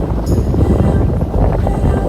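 Wind buffeting the microphone in a low, steady rumble, with background music.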